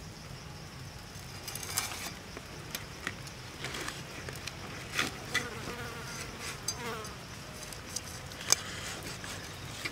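Knife cutting into the crisp roasted skin of a grilled pig head: a scattered run of sharp crackling crunches, the loudest near the end. Insects buzz steadily underneath.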